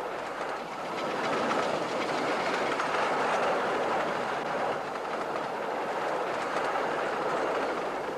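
A 15-inch-gauge miniature railway train running along its track, heard as a steady rumble of the carriages with faint clicks of the wheels on the rails. It grows a little louder about a second in.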